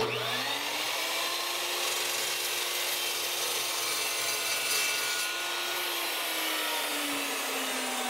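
Evolution 15-inch metal-cutting chop saw with a carbide blade starting up, rising to speed and cutting through a crimped copper battery-cable lug, then its motor winding down near the end as it is switched off.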